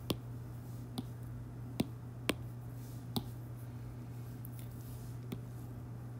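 Light, sharp taps of a stylus on a tablet's glass screen, six irregular ticks about half a second to two seconds apart, over a low steady hum.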